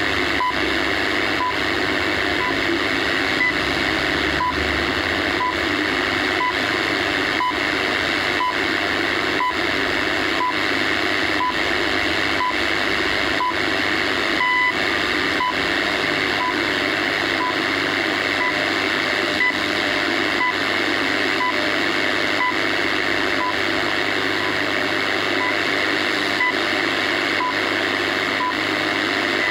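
Shortwave time-signal broadcast on 15 MHz heard through a radio receiver: short high pips once a second over steady static hiss, with one longer, stronger pip about halfway through.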